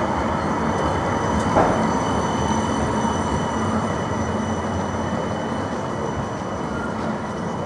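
Midland Metro CAF Urbos 3 electric tram passing close by on street track and pulling away, a continuous running noise with a few steady whining tones on top that fades slightly as it goes, with a single click about one and a half seconds in.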